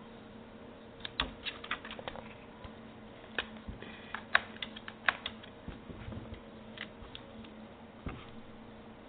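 Computer keyboard keys clicking and tapping in an irregular scatter as a cat's paws press on them, the clicks thickest in the first half and loudest about four seconds in.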